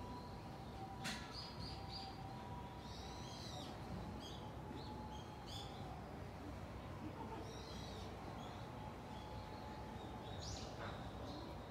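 Small birds chirping in short, scattered calls, faint, over a steady low outdoor background rumble.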